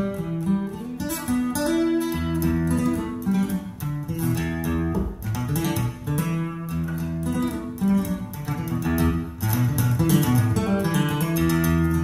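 Live solo acoustic guitar recording played back over floor-standing hi-fi loudspeakers: a fast instrumental passage of picked notes and strums, with no singing.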